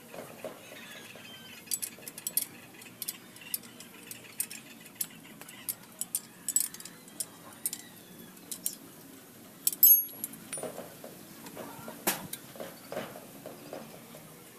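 Small metal parts clicking and clinking against a motorcycle swing arm as they are handled and fitted by hand: irregular sharp clicks throughout, the loudest cluster a little past two-thirds through.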